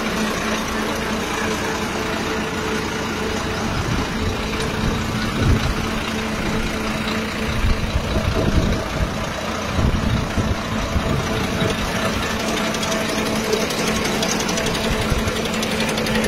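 Large engine idling steadily with an even hum, with a few low thumps in the middle stretch.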